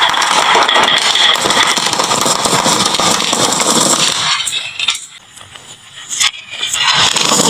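Many marbles clattering and clicking down a wooden marble-run slope and into toy trucks in a dense, continuous rattle. The clatter dies away about five seconds in, a single click sounds a second later, and the rattle picks up again near the end.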